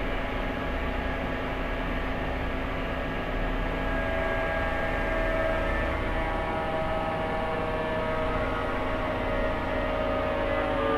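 Rexroth A10VO45 variable-displacement axial piston hydraulic pump running steadily on a test rig under pressure, set to 265 bar main pressure with load-sensing at 22 bar. A steady whine of several tones over a low motor hum.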